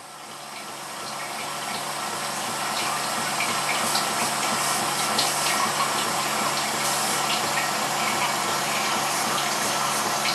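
TOTO Neorest AH1 washlet spraying water on its softest, weakest setting, building up over the first few seconds and then running steadily over a low hum from the unit. A small, low tapping knock comes from the toilet body while it runs, which the owner traces to the flow-regulating valve unit he replaced.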